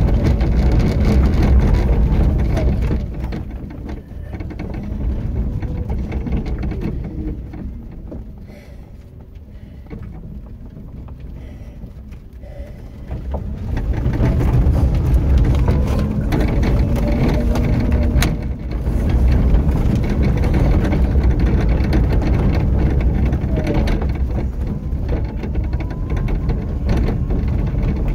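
Low rumble of a slow vehicle rolling along a rough unpaved path. It eases off for several seconds in the middle, then grows loud again about halfway through.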